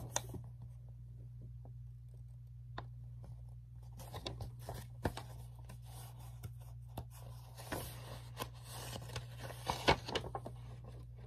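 Faint rustling, scraping and clicks from handling a paperback storybook and turning its pages, with a sharper click about ten seconds in, over a steady low hum.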